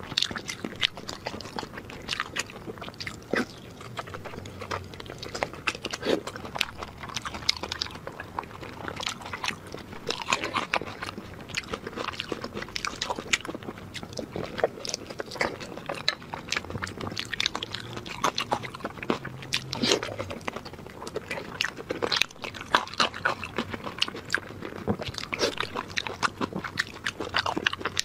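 Close-miked eating sounds: a person biting and chewing soft chunks of meat, with dense, irregular wet clicks from the mouth.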